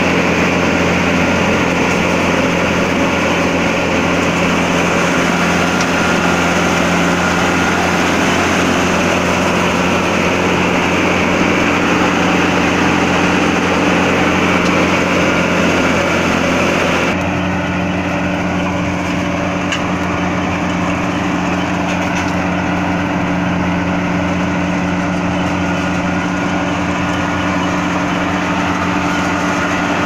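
Mechanical tomato harvester running: a steady engine hum together with the noise of its conveyors and sorting belts. About halfway through, the hiss in the highest sounds suddenly drops away and the whole sound gets slightly quieter.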